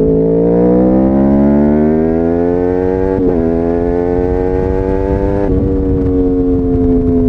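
Yamaha R1's crossplane inline-four engine through a Bodis slip-on exhaust, pulling hard with the pitch climbing steadily. There is a brief break about three seconds in and another about five and a half seconds in, typical of upshifts. After the second, the note settles and slowly falls.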